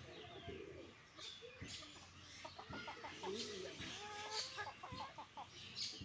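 Free-range hens clucking and calling in short bursts as they forage, mixed with higher chirps from small birds.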